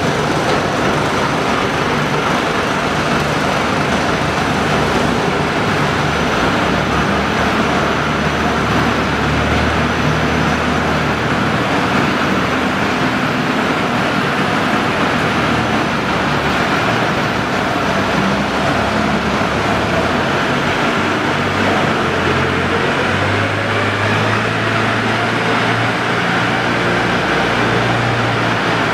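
Steady mechanical rumble and hiss of industrial machinery running, a waste-processing line's motors and conveyors, with a low hum underneath that shifts in pitch now and then.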